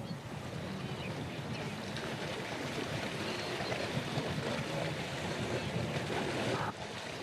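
Steady rushing noise, like moving water or wind, that drops off suddenly near the end.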